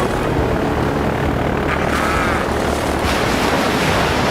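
Cartoon aircraft engine sound effect: a steady propeller-engine drone, with a brief wavering higher tone about two seconds in.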